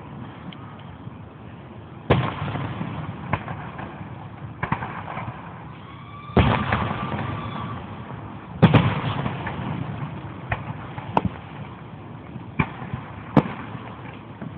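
Aerial fireworks bursting in a slow, uneven string of about nine sharp bangs. The three biggest, about two, six and a half and nine seconds in, each trail off in a rolling rumble.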